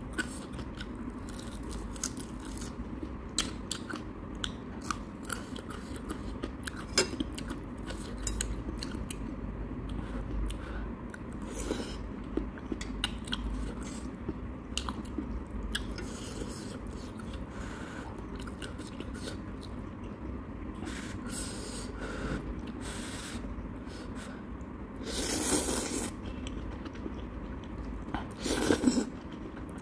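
Close-miked eating: steady chewing and biting with many small crunches and clicks. Two longer, louder slurps of ramen noodles come near the end.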